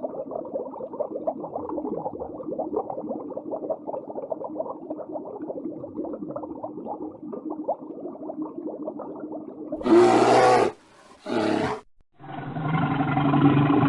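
A dense, irregular clamour of many low overlapping animal calls, then three loud roars from a large animal starting about ten seconds in, the last the longest.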